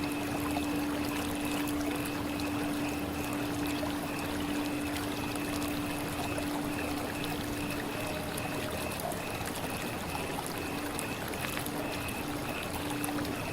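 Steady running water, an even rushing trickle, with a steady low hum that fades out about halfway through and a faint high tone that flickers on and off.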